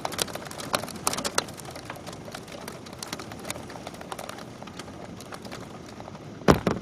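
Hail coming down: many irregular sharp ticks and clicks of hailstones striking, over a steady hiss, with one louder thump near the end.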